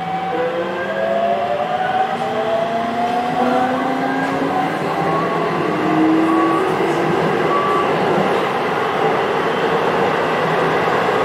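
Hokuso 7800 series electric train heard from inside the car, accelerating: the Toyo GTO-VVVF inverter's whine climbs in pitch in several tones at once over the wheel-and-rail running noise. The climb levels off past the middle into steady running.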